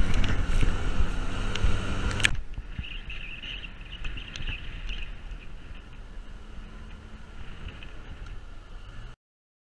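A vehicle driving along a rough dirt track, picked up by a camera mounted on its outside: steady driving noise with a low rumble and wind across the microphone. The first two seconds hold a louder burst of knocks and rustling that cuts off suddenly.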